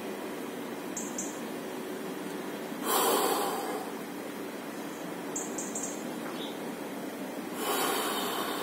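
A man's slow, deep breathing while sitting in cold water, with two loud, rushing exhalations about five seconds apart, one around three seconds in and one near the end.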